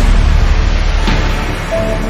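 Dramatic background music with a heavy bass and a drum hit about a second in.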